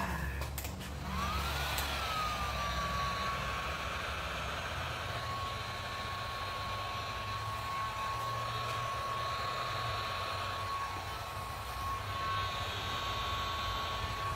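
Heat gun switched on about a second in and running steadily, its motor whine rising briefly and then holding one pitch over a constant rush of blown air. It is heating freshly poured epoxy resin and white paste so that cells and lacing form.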